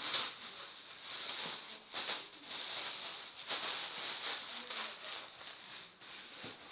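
Rustling and handling of clothes as they are folded and packed into a suitcase: an uneven hissing rustle that rises and falls.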